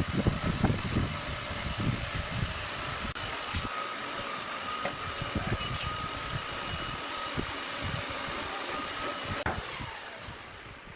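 An electric power tool's motor running steadily with a high whine, then winding down about nine and a half seconds in, with scattered low knocks of work on wood.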